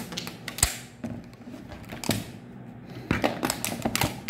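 Food packaging being handled and opened: a string of irregular sharp clicks and crackles.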